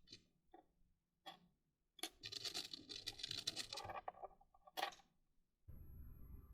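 Plastic LEGO pieces being handled and fitted together: a few light clicks, then about two seconds of dense rattling and scratching from about two seconds in, and one more click near the end.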